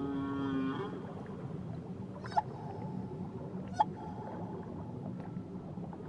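Whale calls over a steady low wash. A long low call with several tones at once fades out about a second in, then two sharp short cries, about a second and a half apart, each run into a held higher note.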